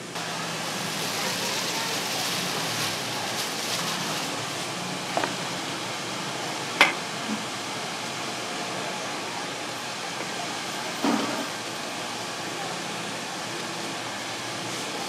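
Steady rush of a high-flame gas wok burner and food sizzling in the wok, with a few clanks of the metal ladle against the wok, the sharpest about seven seconds in.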